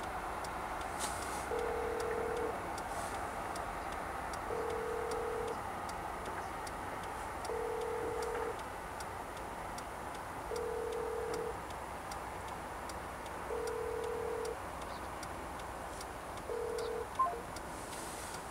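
Steady rush of river water over rocks, with a low electronic beep about a second long repeating every three seconds, six times, the last one cut short. Faint regular ticking runs underneath, and a single sharp click comes near the end.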